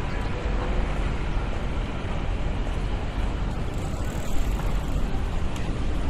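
City street ambience: a steady low rumble of distant traffic and background noise.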